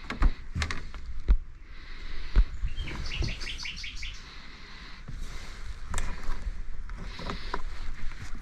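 A songbird giving a quick run of about eight high chirps in under a second, with scattered sharp knocks.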